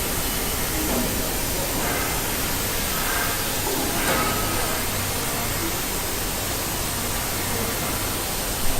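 Steady loud hiss of factory-floor noise from machinery and ventilation, with faint voices under it.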